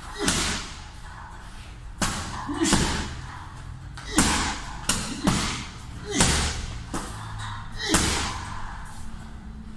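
Punches landing on a hanging heavy bag: about nine thuds at an uneven pace, some in quick pairs.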